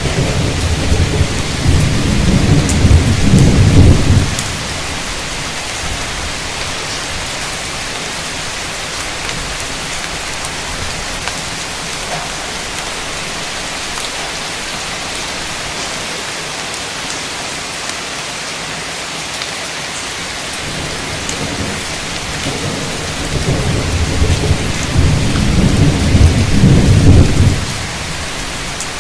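Heavy rain falling steadily, with two rolls of thunder: one in the first few seconds and another near the end, each rumbling low for about four or five seconds and then cutting off quite suddenly.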